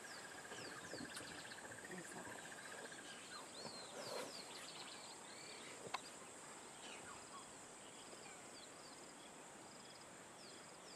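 Faint grassland ambience: a steady high insect drone with scattered bird chirps throughout. A lower, pulsing trill stops about three seconds in, and there is a single sharp click near the middle.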